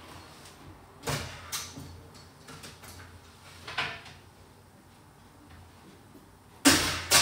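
An oven door and a baking tray being handled as the tray is taken out: a few light knocks and clicks, then two loud bangs close together near the end.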